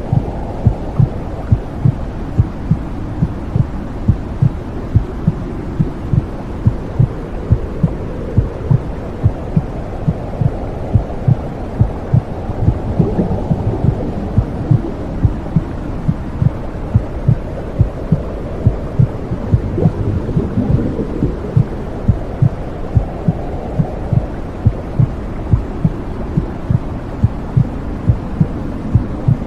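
Womb sound: a steady heartbeat thumping in an even rhythm over a low, muffled whooshing rush.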